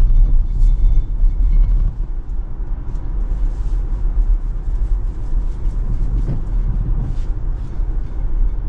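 Steady low rumble of road and tyre noise inside a Tesla Model Y's cabin while driving, with no engine note.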